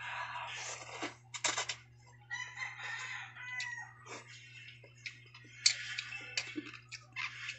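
A rooster crowing in the background, with one drawn-out call about two and a half seconds in, over close eating sounds: slurping of noodles and a sip from the bowl, with a few sharp clicks about one and a half seconds in.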